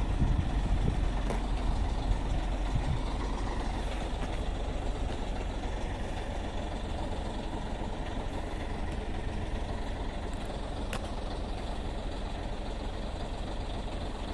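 Scania heavy truck's diesel engine running as it hauls a long low-loader trailer past and away, the low rumble slowly fading.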